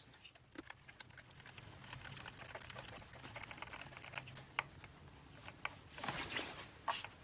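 New spark plug being threaded by hand into the spark plug tube: faint, irregular small clicks and scrapes of metal and gloved fingers, with a brief rubbing rustle about six seconds in.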